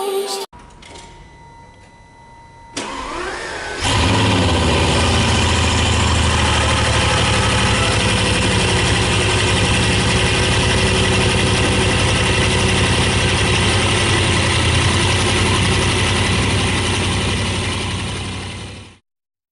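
Bugatti Veyron's quad-turbo W16 engine being started: a rising starter whine, the engine catches about four seconds in, then runs at a steady idle that fades out near the end.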